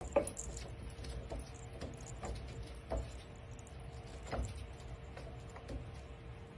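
Light, irregular taps and clicks of a kitten's paws and claws on a wooden bathtub tray, over a faint steady hum.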